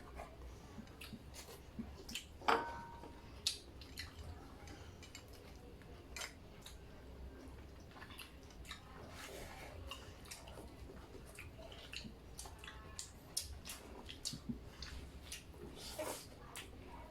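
Eating sounds: chewing and mouth smacks with scattered, irregular clicks of utensils on plates, and one louder clink with a short ring about two and a half seconds in.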